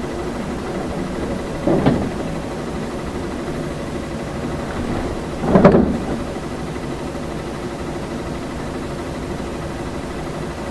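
City bus running, heard from inside: a steady engine and road drone, with two short louder thumps about two seconds and six seconds in.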